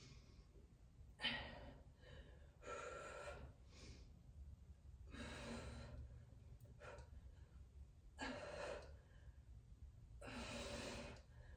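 Faint, heavy breathing of a woman under exertion while pressing dumbbells: about five strong breaths, roughly one every two seconds.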